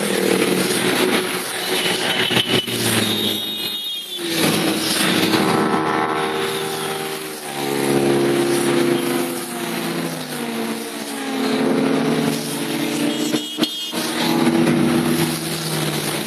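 Motorcycles riding past one after another in a long column, their engines overlapping and rising and falling in pitch as each bike approaches and goes by.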